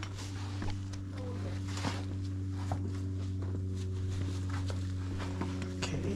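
A steady low drone with a few overtones, of unclear source, with scattered light scuffs and taps of shoes and hands on sandstone.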